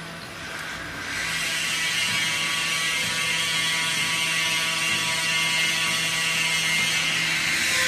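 Spiral freezer's stainless steel belt conveyor running: a steady metallic clatter over an even low hum, rising in level about a second in.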